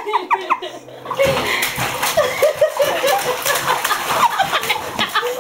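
Baby slapping the bathwater with its hands, a run of splashes starting about a second in, with laughter over it.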